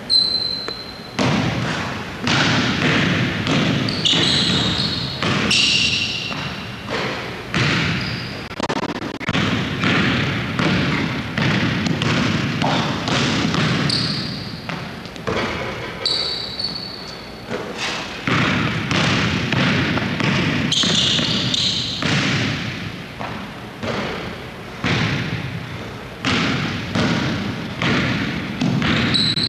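A basketball bouncing and thudding again and again on a hardwood gym floor, echoing through the large hall, with brief high squeaks every few seconds.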